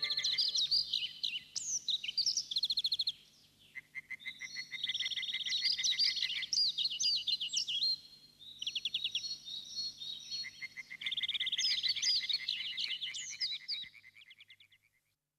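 High-pitched chirping animal calls: rapid trills and quick rising and falling whistled notes, in phrases several seconds long with short gaps, fading out near the end.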